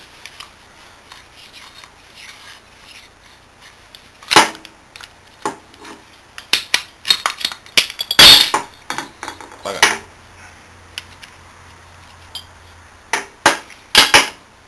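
Metal parts of a disassembled car AC compressor clanking and clicking as its shaft-and-piston assembly is pulled from the housing and handled, setting pistons and parts against each other and the steel bench. Single sharp knocks, a dense run of clicks and clanks in the middle, and a few louder knocks near the end.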